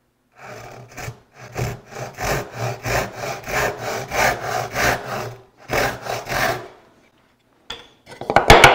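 Brass-backed backsaw crosscutting a tenon shoulder along a knifed line, a steady rasp of about three strokes a second that stops after six and a half seconds. Near the end comes a loud clatter of wood and tool as the freed waste is handled.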